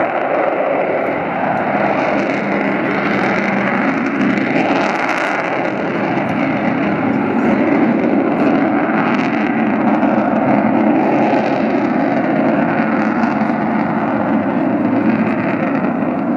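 Avro Vulcan bomber's four Rolls-Royce Olympus turbojets passing overhead in a flying display: loud, steady jet noise.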